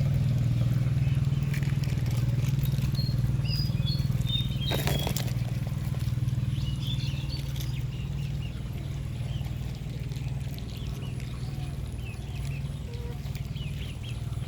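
A small engine running with a steady low hum that slowly fades, with a few bird chirps and a brief knock about five seconds in.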